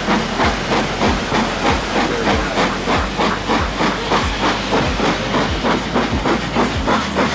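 Steam locomotive hauling the train at speed, its exhaust chuffing in a quick, steady rhythm of about four beats a second, with a lower knock about twice a second underneath.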